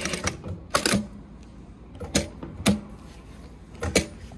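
A Yamata FY9300-D4 direct-drive industrial lockstitch sewing machine stops stitching just after the start. Four sharp mechanical clicks follow, spread over the next few seconds.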